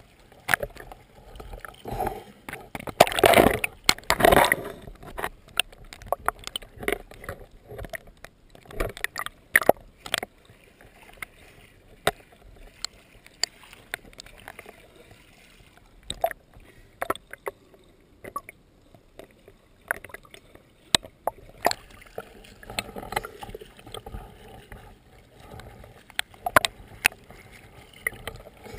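Water sloshing and splashing, with scattered sharp knocks and clicks at uneven intervals. A louder stretch of splashing comes about three to four seconds in.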